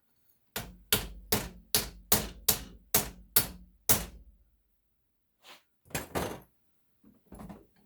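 Hammer blows on a brass water-heater valve fitting, knocking at aluminum melted into it: nine quick, sharp strikes, about two and a half a second, then a pause and a few lighter knocks.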